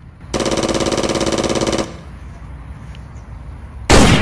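Toy gun firing sound effects: a fast electronic rapid-fire buzz, pulsing at a steady pitch for about a second and a half. Near the end comes a single loud, short gunshot blast.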